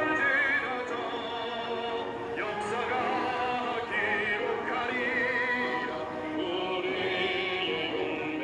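Music with a sung voice holding long notes with wide vibrato, in an operatic style, over a full accompaniment.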